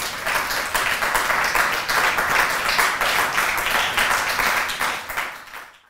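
Audience applauding: many hands clapping together in a steady patter that fades out near the end.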